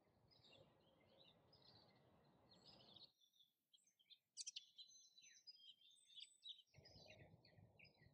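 Faint birdsong: many short, quick chirps from small birds, with a soft low background hiss in the first three seconds and again near the end.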